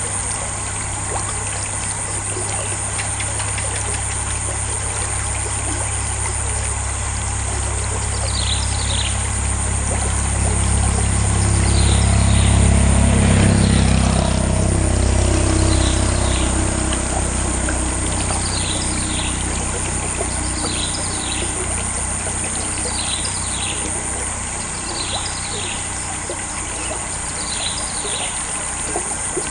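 Steady rush of water trickling through a culvert, with a vehicle passing on the road: its rumble swells to loudest a little before halfway, then fades as its pitch falls. From about a quarter of the way in, a bird chirps in short paired calls every couple of seconds.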